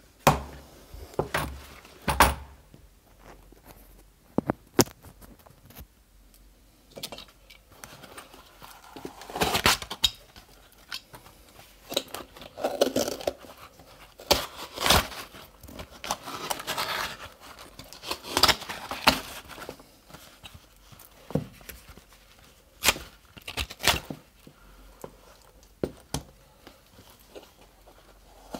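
Black waders being handled and rubbed close to the microphone: irregular rustling and scraping, with scattered sharp clicks and knocks a second or several apart.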